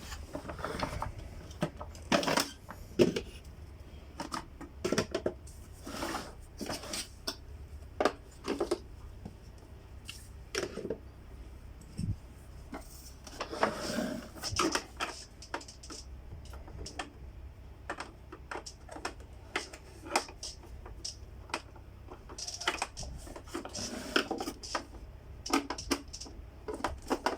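Irregular clicks, taps and rattles of a Samsung SC4520 vacuum cleaner's housing and parts being handled as it is taken apart.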